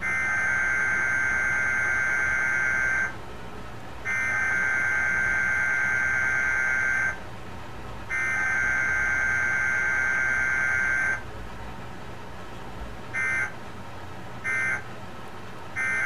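Emergency Alert System digital data bursts for a Required Weekly Test, played from a TV: three long raspy two-tone header bursts of about three seconds each, a second apart, then three short end-of-message bursts about a second apart near the end.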